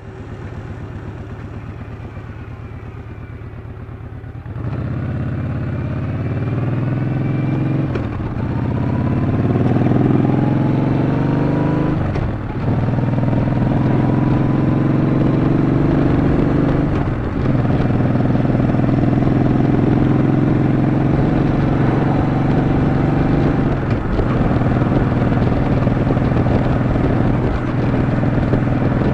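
Yamaha Bolt's air-cooled V-twin motorcycle engine running steadily for a few seconds, then pulling away and accelerating. It rises in pitch through the gears, with breaks for shifts about eight and twelve seconds in, then runs at a steadier speed with brief dips as the throttle eases.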